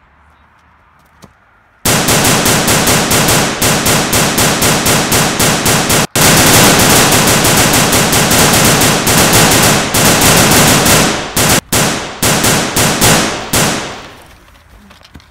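Machine-gun sound effect: rapid automatic gunfire laid over a Nerf blaster fight. It starts suddenly about two seconds in and runs in long bursts, with brief breaks around six and twelve seconds, then breaks into shorter bursts that fade out near the end.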